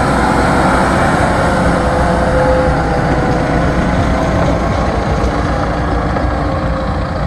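Large diesel tractor engines running steadily under heavy load, the tractors pulling against each other through a hitch cable.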